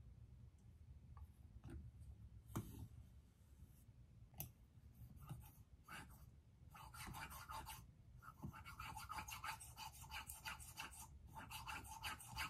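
Faint sound of a scissor blade being stroked over a Japanese King whetstone. A few scattered clicks come first, then about halfway in a quick run of short rasping strokes starts, several a second, broken by brief pauses.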